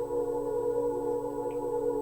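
Ambient background music of sustained, steady drone-like tones, like held singing-bowl or gong notes.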